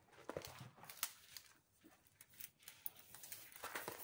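Faint handling sounds: soft rustling and scattered light clicks of plastic-wrapped diamond-painting kit packaging being moved about.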